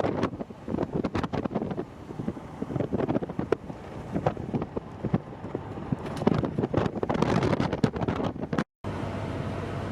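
Wind buffeting the microphone in irregular gusts. Near the end the sound drops out for a moment and gives way to a steady low rumble.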